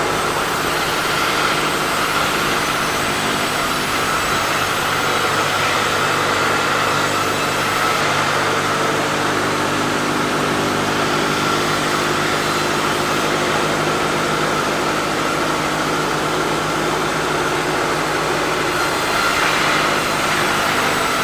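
Sawmill saw running steadily, with a constant engine-like drone and a steady high whine over it.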